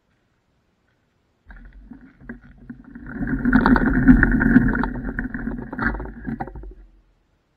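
An electric scooter rolling over a gravel path: a muffled rumble and rattle carried through the deck-mounted camera. It starts about a second and a half in, swells in the middle and dies away shortly before the end.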